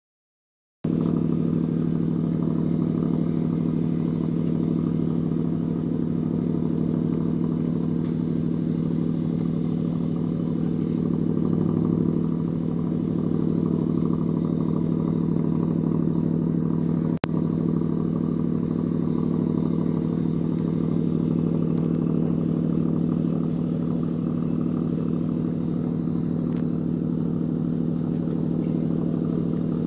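Ship's anchor windlass running steadily as it heaves in the anchor: a loud, even machine hum that cuts out for an instant about halfway through.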